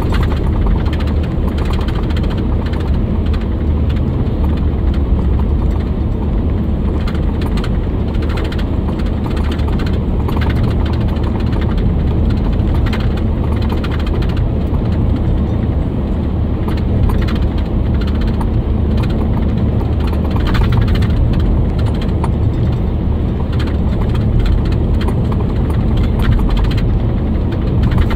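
A freight train of covered hopper cars rolling past at speed: a steady rumble of steel wheels on rail, broken by frequent clicks and clanks.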